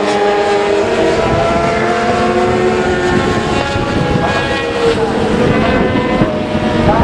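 Several 600cc supersport racing motorcycles running hard around the circuit, their engine notes overlapping and gliding down and up in pitch as they brake, shift and accelerate.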